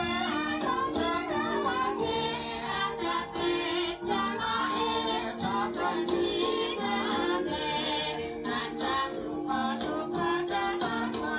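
Music for a seated group dance, with singing voices and a steady percussion beat.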